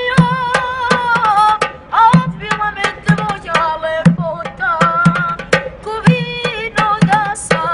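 A boy singing a folk song, bending and holding wavering notes, while beating a steady rhythm with his hands on a small drum in his lap: a deep thump about every half second with sharp slaps between.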